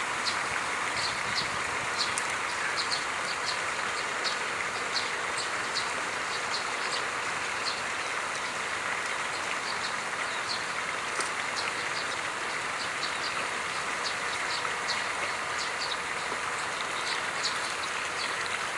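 River water flowing steadily, a continuous rushing hiss, with many faint short high-pitched clicks scattered through it.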